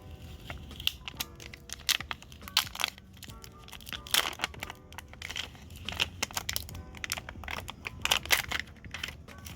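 Plastic packaging crinkling and crackling in many irregular snaps as a replacement phone battery is unwrapped from it.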